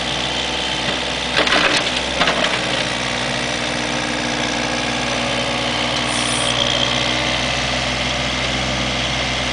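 Komatsu PC27MR mini excavator's diesel engine running steadily while the machine works its boom and swings. A few sharp knocks come about a second and a half and two seconds in.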